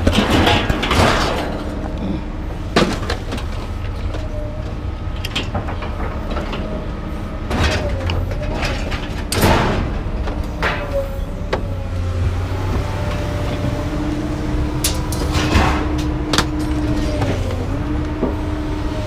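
A motor vehicle's engine running steadily, with scattered knocks and rattles throughout and a wavering steady tone from a machine in the last few seconds.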